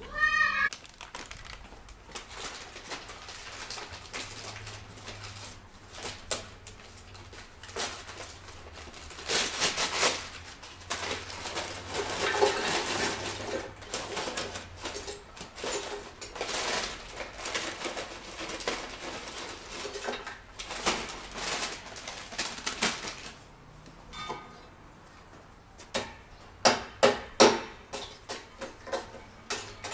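Charcoal being tipped from a bag into a steel mangal: the bag rustles and lumps of charcoal clatter and clink against the metal grill, with a run of sharp clinks near the end.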